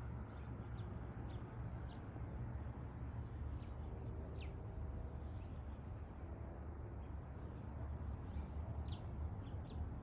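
House finches giving short, scattered chirping calls, a few sharper ones about four and a half and nine seconds in, over a steady low rumble.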